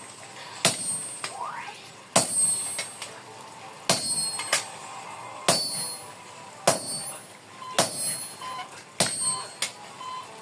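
Hammer blows on metal, about eight strikes roughly a second or so apart, each with a short high ring: a smith cutting the ends off a forged iron head, hammer on chisel and anvil.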